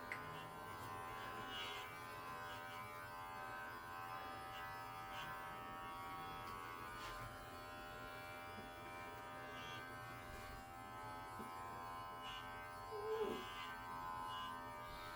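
Electric pet hair clippers running with a steady buzz. A brief falling cry sounds once near the end.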